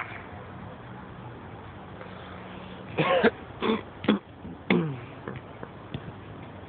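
Four short voice calls or shouts in quick succession from about three seconds in, the last one falling in pitch, over a steady background hum; a few faint knocks follow.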